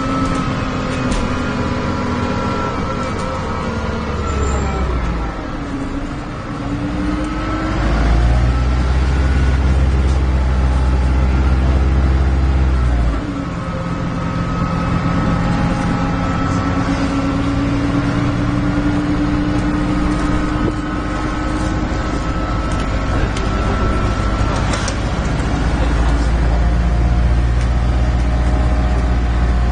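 MAN diesel engine of an Alexander Dennis Enviro 300 bus heard on board while under way, its cooling fan audible, with an engine note that the uploader calls poorly sounding. A deep drone with whining tones over it rises as the bus pulls about six seconds in, drops suddenly about thirteen seconds in, and pulls hard again near the end.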